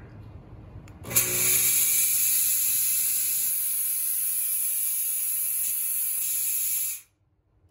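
Chauvet DJ Geyser P7 fog machine firing a vertical burst of fog: a loud, steady hiss that starts suddenly about a second in, with a low hum under it at first, and cuts off abruptly about six seconds later.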